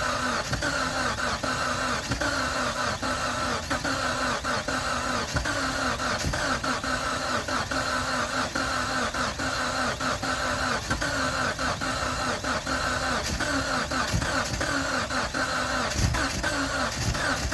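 Starter motor steadily cranking a 2G Mitsubishi Eclipse GSX's turbocharged 4G63 inline-four without it firing: a no-start after the fuel pressure regulator diaphragm was replaced. There are a few heavier low thumps near the end.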